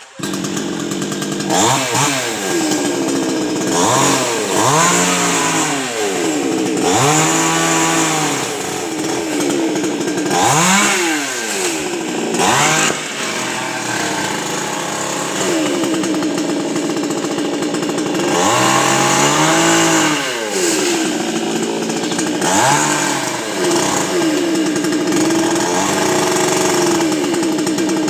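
Two-stroke chainsaw cutting coconut palm wood, its engine revving up and dropping back again and again, about a dozen times.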